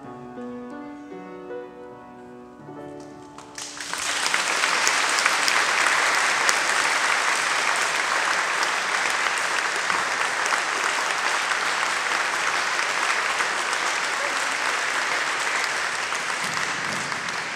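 The last few held notes of an instrumental accompaniment, then about three and a half seconds in, audience applause breaks out suddenly and carries on steadily, easing slightly near the end.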